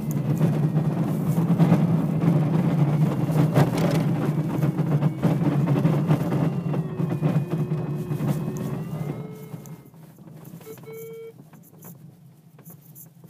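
Duo Discus glider's wheel rolling over a grass airfield after touchdown, heard inside the cockpit as a steady rumble and rattle that dies away about ten seconds in as the glider rolls to a stop. A short tone sounds about a second later.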